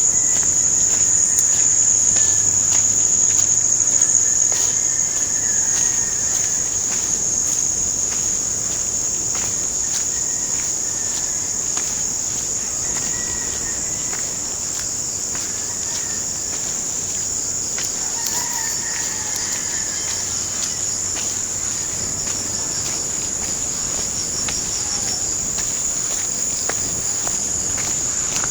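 Steady high-pitched chorus of insects, with faint bird calls now and then.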